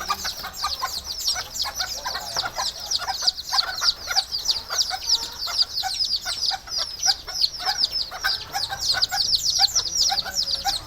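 A flock of bantam chickens calling: a dense, unbroken chorus of high, quick downward chirps, several a second, with lower clucks mixed in.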